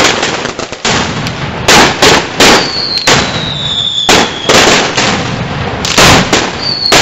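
Firecrackers going off: about eight sharp bangs at uneven spacing, with a high whistle that falls slowly in pitch for about two seconds from two and a half seconds in.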